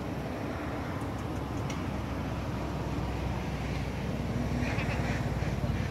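A vehicle engine rumbling steadily, growing a little louder near the end.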